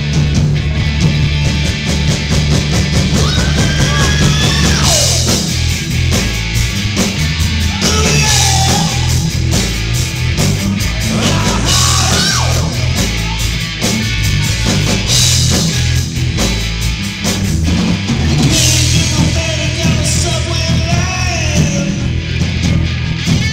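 Live rock band playing loud, heavy rock on electric guitar, bass and drum kit, with a singer's vocal lines coming in several times through the microphone.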